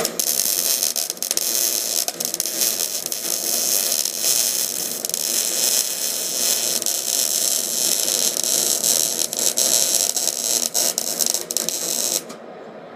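MIG welding arc running a bead on a pipe: a steady crackling buzz that starts abruptly and cuts off about twelve seconds in.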